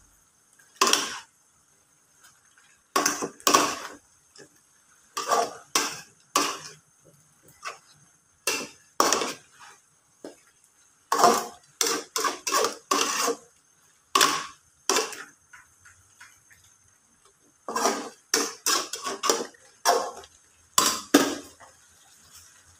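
Metal spatula clanking and scraping against an aluminium wok as chicken pieces in a green chili sambal are stirred and turned. The sound is irregular sharp knocks in quick clusters, with short pauses between them.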